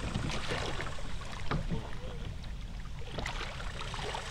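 Small waves slapping and splashing against a kayak's hull and lapping on a rocky shore, in a string of irregular little splashes, with a low wind rumble on the microphone.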